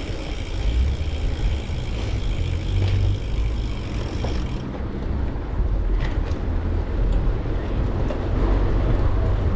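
Wind buffeting a bike-mounted action camera's microphone while riding, a heavy low rumble over the steady noise of the bicycle's tyres rolling.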